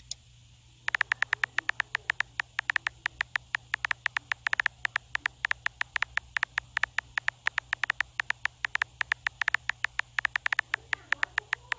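Simulated phone-keyboard typing clicks from a texting app, one quick click per letter at about six a second, with brief pauses between words and messages.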